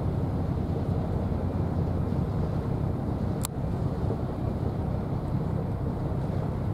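Wind buffeting the microphone as a steady low rumble, with one short sharp click about halfway through.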